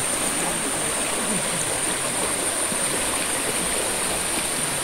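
Shallow, fast river water rushing over rocks: a steady, even rushing with no pauses.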